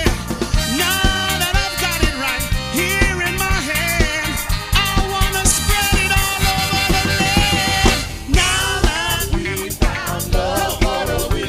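Upbeat band music with singing over a steady drum beat.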